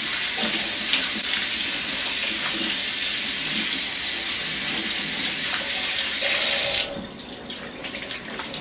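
Kitchen faucet running into a stainless steel sink, the stream splashing over a microfiber cloth being rinsed under it. About six seconds in there is a louder splash, then the water stops near seven seconds, leaving only faint drips and splashes as the wet cloth is squeezed out.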